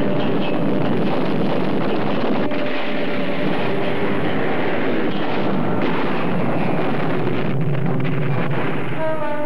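Film soundtrack of explosions and fire: a continuous roaring rumble at a steady level, with a few faint musical tones underneath.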